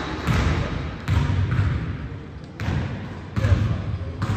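Basketball being dribbled in a gym, about five echoing bounces at roughly one a second.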